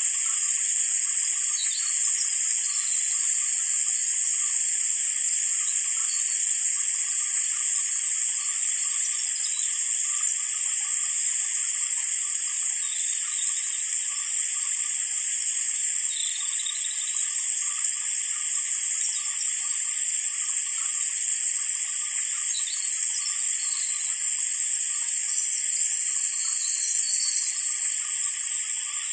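Light rain falling as a steady, high-pitched hiss that holds even throughout.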